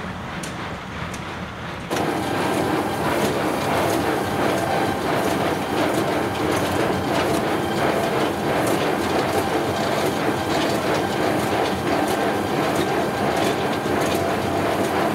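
Welger AP630 conventional square baler running behind its tractor: a steady mechanical clatter with repeated short clicks. It gets suddenly louder about two seconds in.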